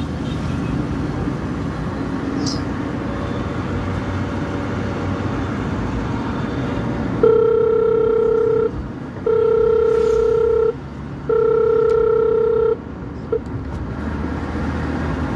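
Road and engine noise inside a moving car, with three long, steady beeps of about a second and a half each starting about seven seconds in, then a short blip. The beeps are the loudest thing.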